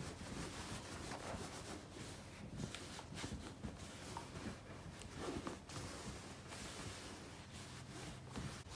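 Household iron sliding and rubbing back and forth over denim on an ironing board, in faint, irregular strokes, pressing iron-on seam tape to bond the seam.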